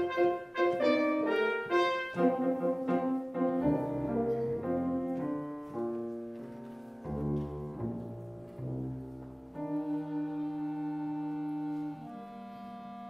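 Small orchestra of bowed strings and brass playing a quiet instrumental passage, the notes growing softer and settling into long held chords about ten seconds in.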